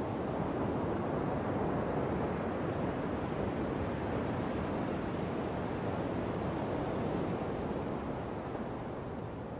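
Steady rush of sea surf and wind on a shoreline, fading out near the end.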